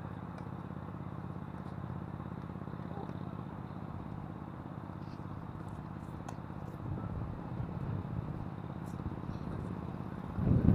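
Wind buffeting an action camera's microphone as a steady low rumble, swelling into a loud gust near the end. A few faint, sharp tennis racket strikes on the ball show through.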